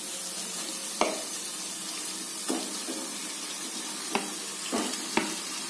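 Marinated chicken pieces dropping from a plate into a hot pan of onion masala and starting to sizzle, a steady frying hiss broken by about five sharp clicks of a steel spoon scraping against the plate and pan.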